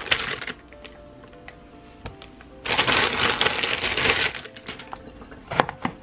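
Eggplants being handled on a plastic cutting board. There is a knock as they are set down, scattered light clicks, and a dense rustling burst of about a second and a half in the middle. Near the end a kitchen knife cuts through an eggplant's stem end onto the board with a couple of sharp knocks.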